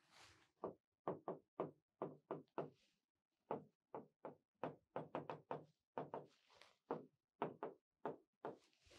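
A stylus tapping on a tablet screen while writing: a run of about thirty short, uneven taps, sometimes in quick clusters, with pauses of about a second between groups.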